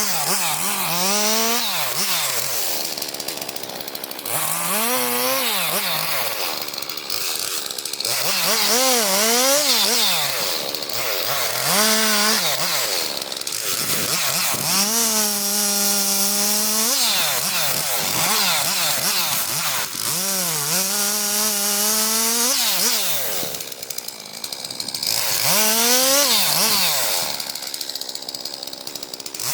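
Chainsaw cutting logs into firewood lengths, its engine revving up and dropping back again and again, about eight times, as it bites into the wood.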